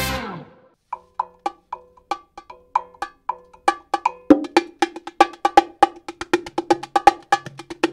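Music opening with short, pitched percussion strikes, a few a second at first, growing denser and louder from about four seconds in as a low note enters.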